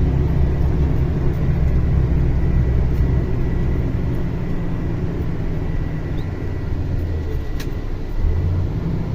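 Mercedes-Benz Axor 2644 truck's diesel engine running steadily under load, heard from inside the cab as a strong low drone that eases slightly in the second half.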